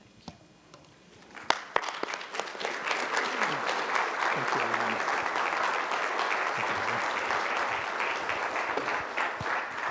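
Congregation applauding. After a brief quiet it starts about a second in with a few separate claps, quickly fills out into steady applause, and eases off near the end.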